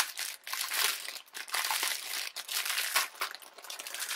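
Clear plastic packaging sleeve of a cross-stitch kit crinkling in irregular bursts as hands work it open and pull the contents out.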